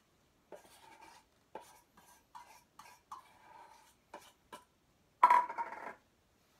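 A run of short scrapes and rustles, then about five seconds in a louder, ringing scrape of a utensil against a stainless steel mixing bowl as flour and salt are stirred.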